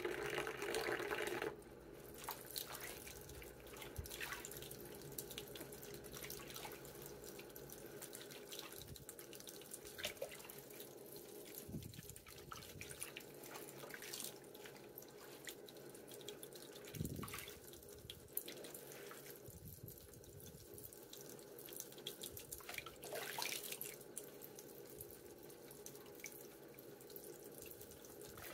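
Faint sloshing and dripping of soapy bathwater as hands lather a wet Yorkshire terrier in a sink, with a few small splashes now and then.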